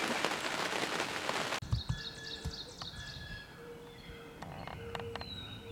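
A steady rushing hiss, like rain, cuts off abruptly about a second and a half in. After it, songbirds call in the quiet: a quick run of about six descending chirps, then short steady whistled notes, with a few faint clicks near the end.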